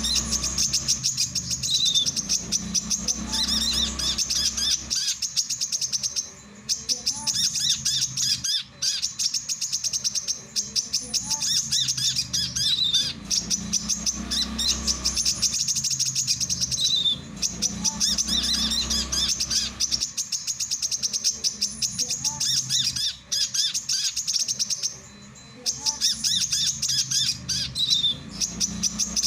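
Male brown-throated sunbird singing: a rapid, high chattering stream of notes, broken by short pauses every several seconds.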